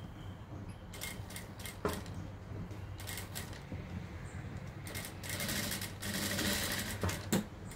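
Industrial lockstitch sewing machine stitching fabric along a curved collar seam: a steady low motor hum with scattered sharp clicks, louder for a couple of seconds about five seconds in.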